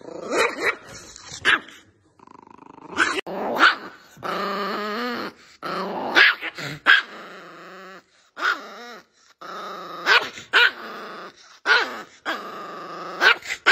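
Small chihuahua-type dog growling and snarling, broken by sharp barks and yaps, in repeated angry bursts with short gaps between them.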